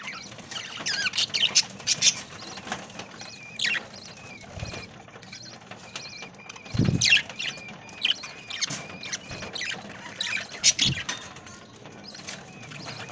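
A flock of budgerigars chirping and chattering: many short, high chirps and squeaks with a thin wavering whistle now and then. A louder burst comes about seven seconds in.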